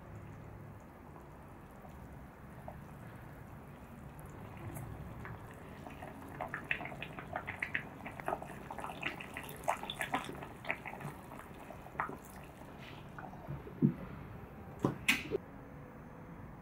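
Tomato and tofu soup simmering in a small saucepan, bubbling with many small irregular pops while a wooden spoon stirs it. A few sharper knocks come near the end.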